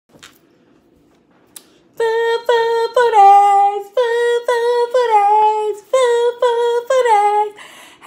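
A woman singing a short unaccompanied tune in a series of held notes, beginning about two seconds in after a faint click.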